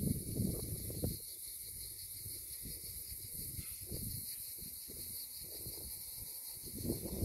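A steady, high insect chorus buzzing in the dry scrub, with wind buffeting the microphone as a low rumble that is loudest in the first second and returns in a few weaker gusts.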